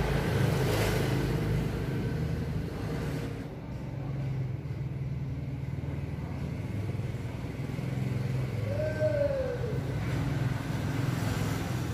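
A motor engine running steadily with a low hum, with one short tone that rises and falls about nine seconds in.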